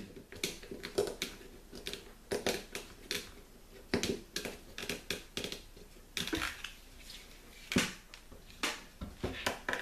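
Hands handling an orange plastic spring clamp with a bungee cord loop: a string of irregular sharp clicks and light knocks as the plastic jaws and cord are moved about.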